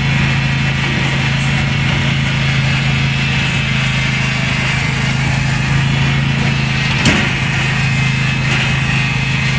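John Deere lawn tractor engine running at a steady pitch, with one sharp click about seven seconds in.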